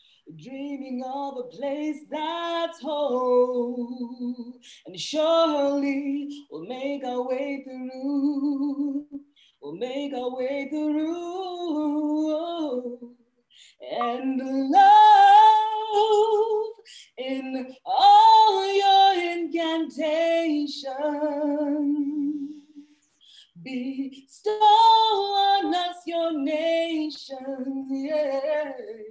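A woman singing solo and unaccompanied, in long held phrases with vibrato, broken by short pauses for breath. The voice swells to its loudest in the phrases about halfway through.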